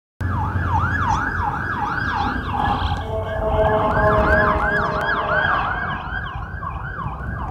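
Emergency vehicle electronic sirens yelping, a fast rising-falling wail about three times a second, as an ambulance passes with a police vehicle. A steady horn blast sounds under the siren for about two seconds in the middle.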